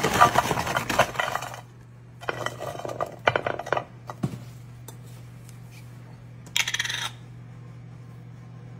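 Alphabet-shaped chicken nuggets tipped out of their box, clattering into a baking dish in two bursts of hard clicks. A brief rattle follows a few seconds later.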